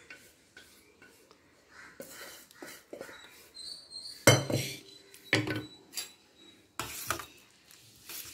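Knocks and clinks of a pressure cooker against a steel serving bowl as thick dal is tipped out and scraped from the cooker with a wooden spatula; the sharpest knock comes about four seconds in, with more a second later and a couple near the end.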